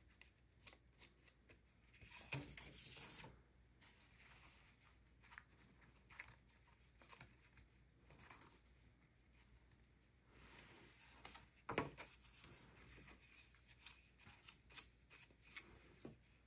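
Quiet paper-craft handling noises: cardstock pieces being handled and fitted together, giving scattered light taps and clicks. There are two longer rustles, about two seconds in and again around ten seconds in.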